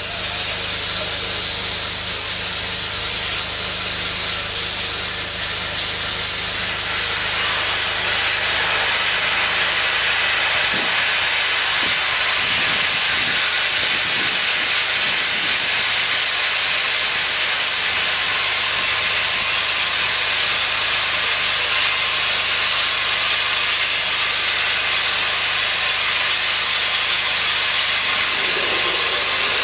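Saddle-tank steam locomotive standing, letting off steam with a loud, steady hiss.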